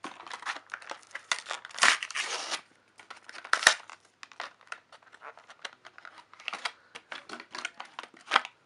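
Clear plastic blister packaging and cardboard box of a die-cast toy car being opened by hand: a dense run of short crinkling crackles, with louder tearing bursts about two seconds in and just before four seconds in.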